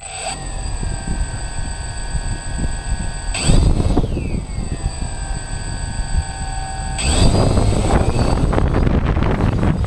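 Quadcopter drone's electric motors and propellers spinning up with a steady whine, heard close from the drone's own camera. They rev briefly about three and a half seconds in, then run louder from about seven seconds in.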